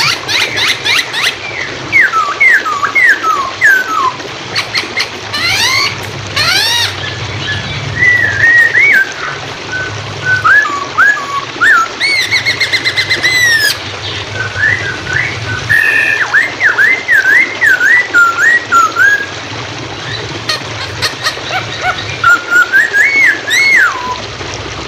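Chinese hwamei (poksay hongkong) singing loud, fast whistled phrases of sliding notes that rise and fall, broken by short pauses. A steady rush of running water sits under the song.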